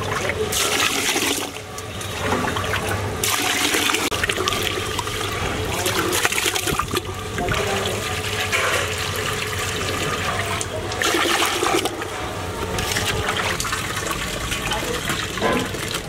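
Water pouring and sloshing in a steel vessel as raw rice is washed, with the cloudy rinse water tipped out.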